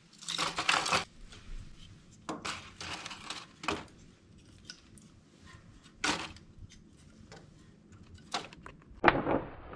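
Crumpled newspaper crinkling and rustling in irregular bursts, with light knocks as kindling is placed in a wood stove's firebox. A loud, sharp scrape comes near the end.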